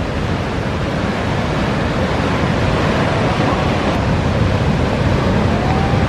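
Big ocean surf breaking: a steady, dense rush of wave noise that swells slightly about halfway through.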